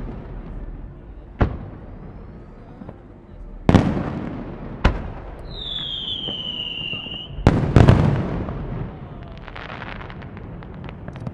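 Aerial fireworks bursting: several sharp bangs, each trailing off in a long echo, with two close together about seven and a half seconds in. In the middle a whistle slowly falls in pitch, and near the end a patter of crackling follows.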